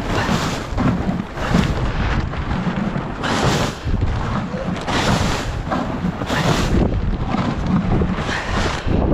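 Strong wind buffeting the microphone in repeated gusts, a loud rumbling rush that surges and eases about every second or two.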